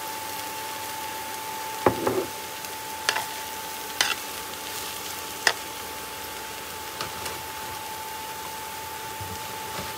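Mixed vegetables sizzling in a coated skillet while a metal spoon stirs them, the spoon clinking against the pan about five times, loudest about two seconds in.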